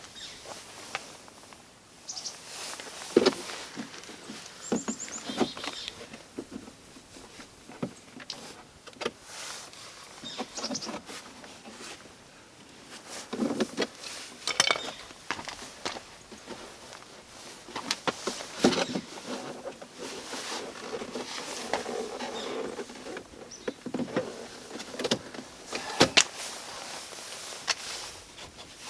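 Hands working on a car's plastic door trim panel: irregular sharp plastic clicks and knocks with handling and rustling between them, as clips and pins are worked loose.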